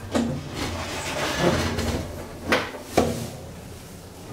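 Sliding doors of a 1971 Asea-Graham inclined elevator closing with a knock, then two sharp clunks about half a second apart, over a low steady hum.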